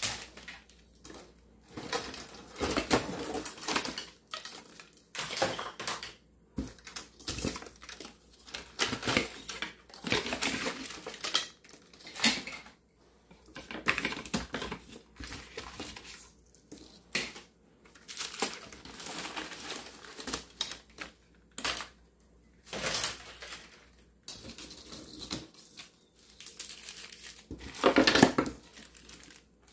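Plastic straws, packets and other small items rattling and crinkling as they are lifted out of a kitchen drawer by hand, in irregular bursts with short pauses, loudest near the end.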